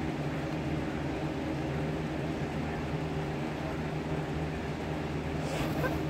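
Electric fan running with a steady hum and whir, with one brief faint sound near the end.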